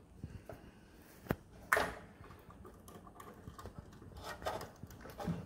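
A sharp click about a second in and a louder one just after, then a few faint ticks, as a wire and screwdriver are worked into a plastic screw-terminal block inside an EV charger.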